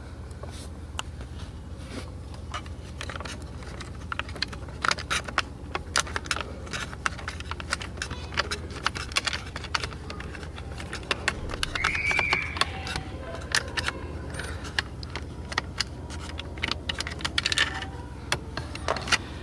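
Irregular clicks and light rattles of a screwdriver working small Phillips screws out of plastic trim under a car dashboard, with a short squeak about twelve seconds in.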